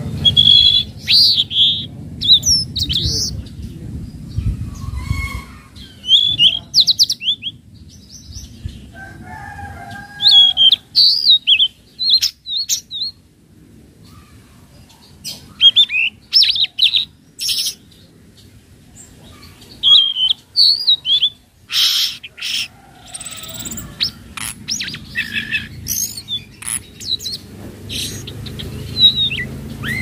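A young, still-speckled tledekan laut (a blue flycatcher) singing. It gives short bursts of high, rapidly twisting whistled notes, with pauses of a second or two between phrases, over a low background hum.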